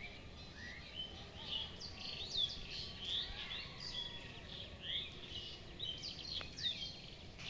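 Birds chirping and calling without a break: many short, quick chirps that swoop up and down in pitch, over faint outdoor background noise.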